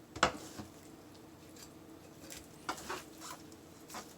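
A few faint, soft taps and wet squishes of a knife cutting the skin of a raw whole chicken and the bird being handled, the clearest about a quarter second in.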